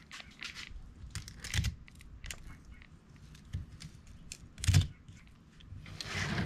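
Fillet knife cutting a bluefin tuna loin away from the spine, with scattered small ticks and crunches as the blade runs along the bones, and two duller knocks.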